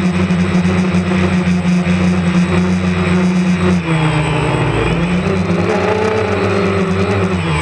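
DJI Phantom quadcopter's electric motors and propellers buzzing at a steady pitch; about halfway through the pitch drops and then climbs back up as the motor speed changes.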